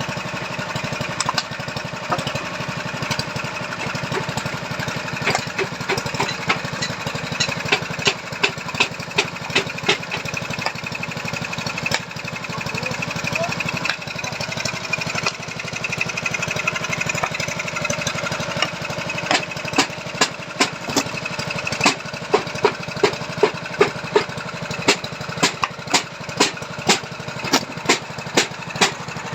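Small engine of a strauss-pile foundation auger running steadily, with sharp knocks over it that come at about two a second in the second half.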